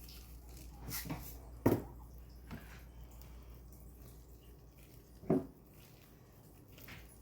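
A sprinkles container being handled: a few sharp knocks and taps, the loudest about one and a half seconds in and another a little past five seconds.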